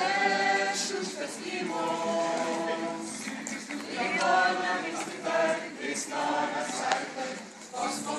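A small group of men and women singing together a cappella, in short sung phrases with brief breaks between them.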